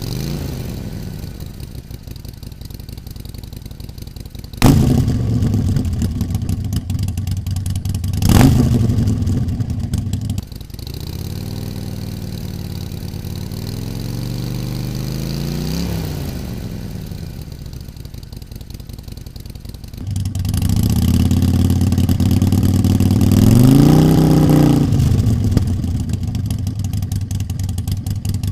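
Harley-Davidson Sportster Forty-Eight's air-cooled 1200 cc V-twin idling and being revved several times through its exhaust: a quick blip about eight seconds in, a slow rise and fall in pitch a few seconds later, and another rev near the end. The level jumps suddenly a few times.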